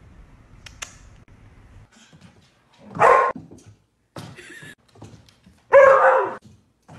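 A dog barking twice, about three seconds in and again near six seconds, with softer sounds between the two barks.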